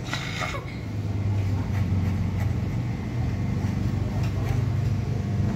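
Electric hair clippers running with a steady low buzz as they cut up the side of a boy's head.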